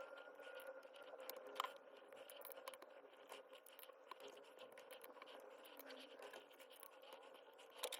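Near silence with a steady faint hum, broken by scattered faint clicks and scrapes of small parts or tools being handled, one a little sharper about one and a half seconds in.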